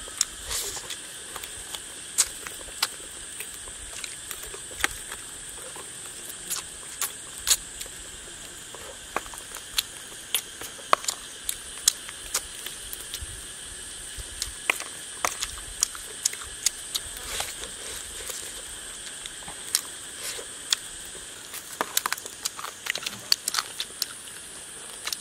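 Close-up eating sounds: wet lip smacks and sharp, irregular clicks and crackles as roasted frog is pulled apart with the fingers and chewed. Under them runs a steady high-pitched insect drone.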